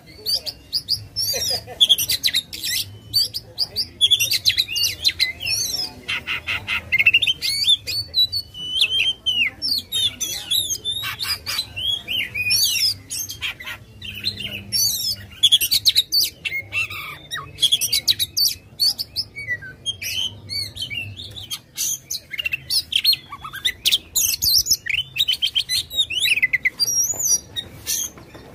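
Oriental magpie-robin (kacer) singing without pause in an aggressive song: a dense run of varied whistled phrases broken by rapid trills and fast note series.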